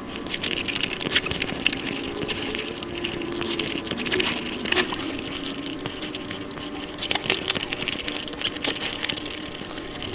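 Close-miked eating sounds of sweets sped up five times: a dense, unbroken run of rapid clicky smacking and chewing.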